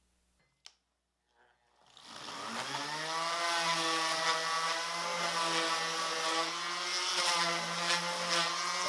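An electric power tool's motor starting with a click, then spinning up over about a second and running steadily at speed with a high whine and a hiss.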